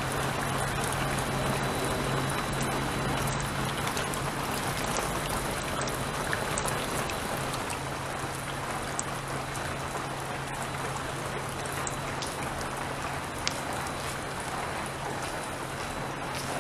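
Shallow stream running over rocks and leaf litter: a steady rushing hiss of water, slightly fainter in the second half.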